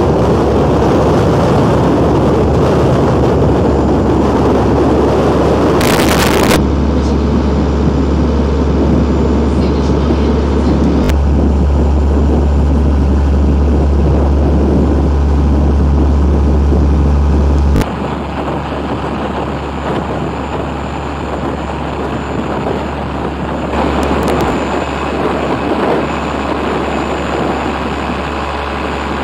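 Boat engine droning steadily under the rush of wind and water past the hull, with a brief loud burst of noise about six seconds in. About two-thirds of the way through the sound cuts abruptly to a quieter drone of the same kind.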